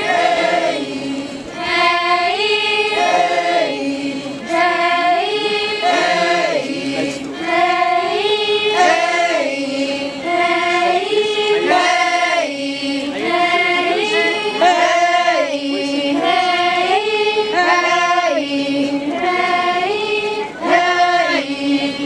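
A group of young voices singing a Naga folk chant in unison. A short phrase, stepping between a few pitches, is repeated about every two seconds.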